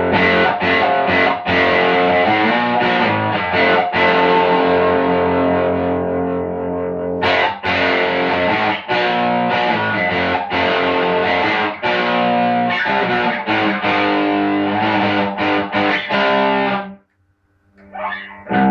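Distorted electric guitar played through a homebuilt high-gain single-ended tube amplifier with 1930s AF7 pentode preamp and AL4 output tubes. It plays metal-style riffs, chords broken by short gaps and a few held notes, then stops a couple of seconds before the end, and a new chord is struck near the end.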